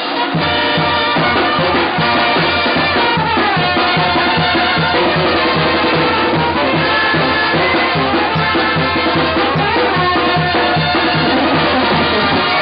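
Mexican banda (brass band) playing a traditional dance tune: a sousaphone bass line pulsing about twice a second under trumpets, trombones and clarinets, with metal-shelled drums keeping the beat.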